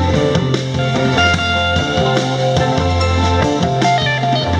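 Live rock band playing an instrumental passage with no singing: electric and acoustic guitars, keyboard and drum kit over a line of low bass notes.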